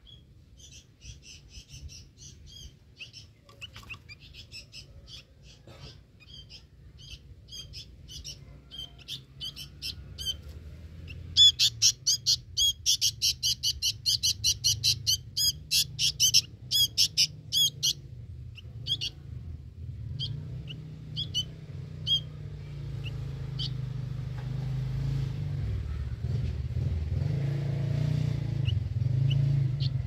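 Young sooty-headed bulbul (kutilang) chirping: short, high calls repeated in runs, with a fast, loud burst of rapid chirps about halfway through. A low engine rumble builds underneath in the second half.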